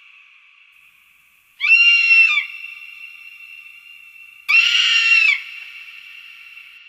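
Hawk calling: two harsh, pitched screams, each under a second long and about three seconds apart, each followed by a long echo that fades away.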